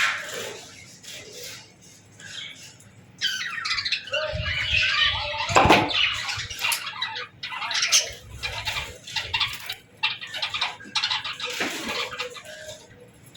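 A flock of budgerigars chirping and chattering: sparse at first, then a dense burst of overlapping chirps from about three seconds in that thins out later. Low rustling runs under the busiest part, with one sharp knock about halfway.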